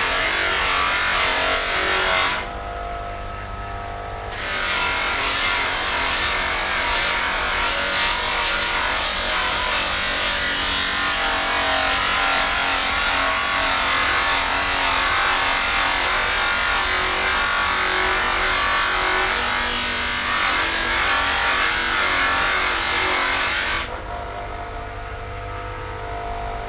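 Bench buffing motor spinning a buffing wheel, with a plastic headlight lens pressed against it giving a steady rough hiss. Twice the lens comes off the wheel, about two seconds in and again near the end, leaving only the motor's hum.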